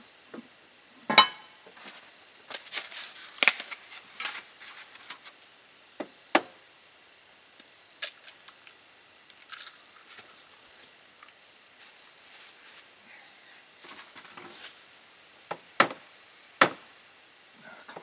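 Scattered clicks, knocks and light rattles of camp-kitchen items being handled, as eggs and a plastic egg carton are fetched from the cooler and set down on the table. A faint steady high whine sits behind them.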